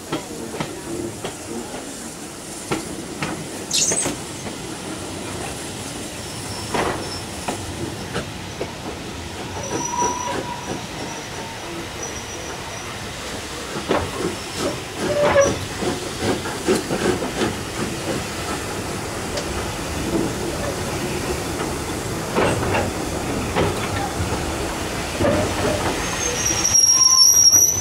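Passenger coaches running on track, heard from an open carriage window: a steady rumble of wheels and rushing air with scattered clicks from rail joints. A brief faint squeal comes about ten seconds in, and a louder high-pitched wheel squeal near the end.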